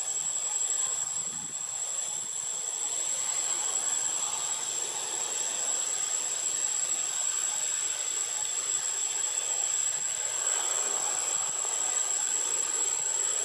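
Steady outdoor insect drone: a constant high-pitched whine over an even hiss.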